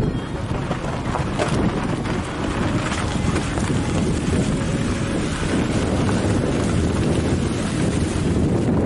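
Wind rushing over the microphone along with road noise from a moving car, as a steady low rumbling rush.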